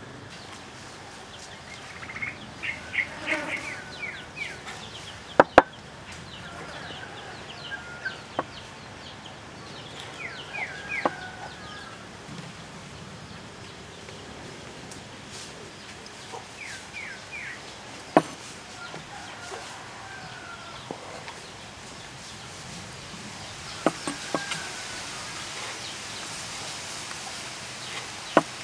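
Chickens clucking in short bursts against a steady outdoor background, with a few sharp single knocks of a knife on a wooden cutting board as meatballs are sliced.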